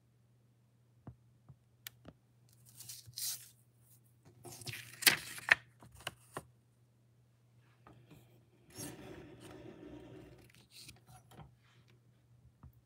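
Sheets of paper and cardstock handled on a cutting mat: short rustles and slides with a few light taps, the loudest rustling about five seconds in and a longer, softer one near nine seconds.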